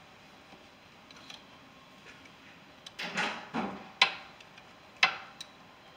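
Wrench working a 9/16 bolt at the back of an A/C compressor: about five short metal clicks and clanks, starting about three seconds in.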